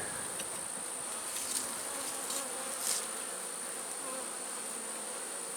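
Honeybees buzzing around an opened hive: a steady, even hum, with a few faint light clicks in the middle.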